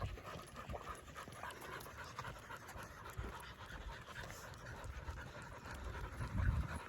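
A dog panting steadily, the panting of a dog worn out by heat and exertion on a walk. A low rumble swells near the end.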